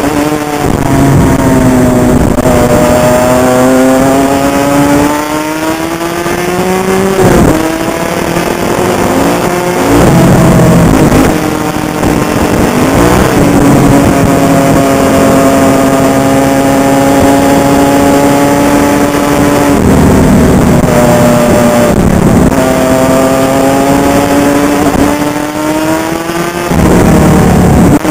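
Honda CR85's 85cc single-cylinder two-stroke engine running hard under a rider, its pitch climbing and then dropping sharply about half a dozen times as the throttle and gears change.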